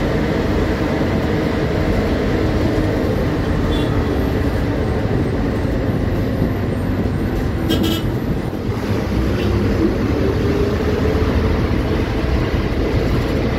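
A KSRTC bus running along the road, heard from the driver's cab: the steady drone of its front-mounted diesel engine mixed with road and wind noise, with a brief sharp click about eight seconds in.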